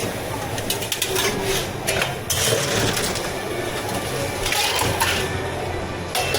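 Drink-making work behind a tea-shop counter: rough crunching noise in two longer bursts, with scattered clicks and knocks.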